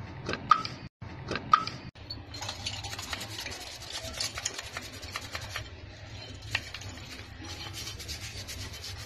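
A hand-held metal brush scrubbing greasy steel scooter-fork parts to degrease them: a continuous rasping scratch of many quick strokes from about two seconds in, after a few short rubbing squeaks.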